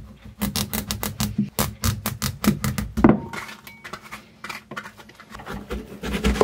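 Kitchen knife chopping squash on a plastic cutting board: a quick run of knocks for the first three seconds, then slower, sparser chops.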